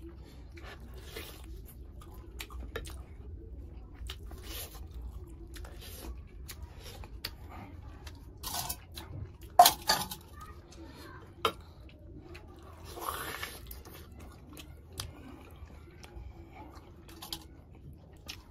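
Close-miked eating of chicken leg curry by hand: chewing and crunching, with meat being torn from the bone. Scattered sharp clicks and clatters, the loudest about ten seconds in and another about a second and a half later.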